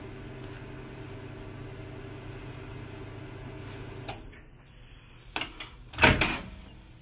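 Microwave oven running with a steady hum that stops about four seconds in as its timer reaches zero, followed by one long high beep of about a second. Then a few clicks and a louder knock as the door is opened.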